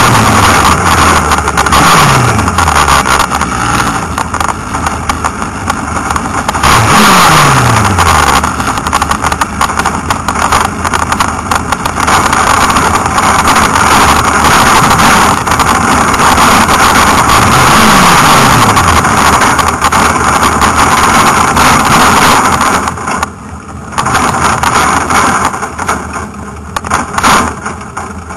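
Onboard sound of an open-wheel hill-climb race car running hard up the course: loud engine and wind roar, with the engine note falling several times as the revs drop. Near the end it gets quieter as the car slows.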